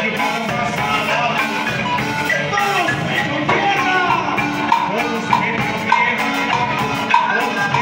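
Live marimba band playing: several mallet players on one large wooden marimba, with a drum kit keeping a steady dance beat.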